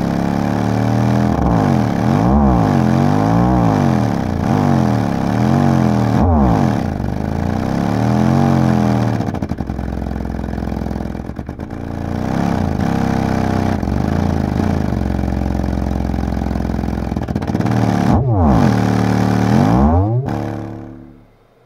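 B2 Audio ISv3 10-inch car subwoofer playing free air, out of any enclosure: loud, deep bass tones with many overtones that slide down and up in pitch again and again, then fade out near the end.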